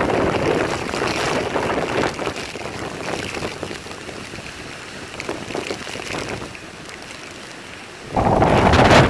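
Typhoon wind and driving rain, gusting in waves and easing off through the middle. About eight seconds in, a sudden, much louder blast of wind buffets the microphone.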